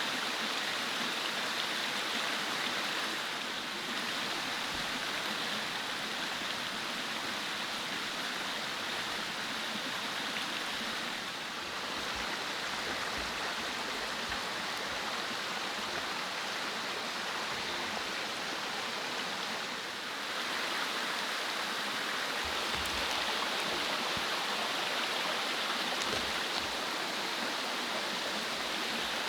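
Mountain stream flowing: a steady rush of water, with a few soft low thumps.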